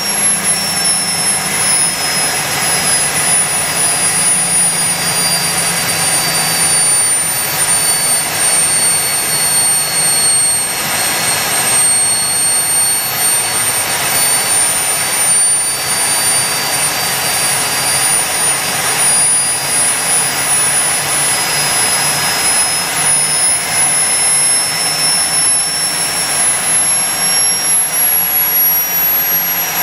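Turbine engine of a 3.4 m radio-controlled EC135 model helicopter running on the ground, a steady loud rush with a high whine. The whine sinks slightly in pitch over the first dozen seconds and climbs back by the end.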